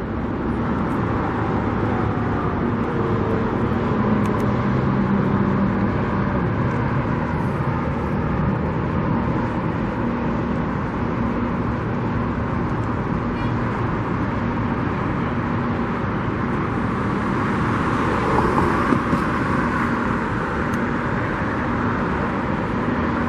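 Steady road traffic noise, with a swell about two-thirds of the way through, like a vehicle passing close by.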